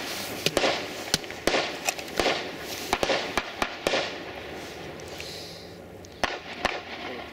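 Irregular sharp pops of distant gunfire, several a second, over a steady background hiss.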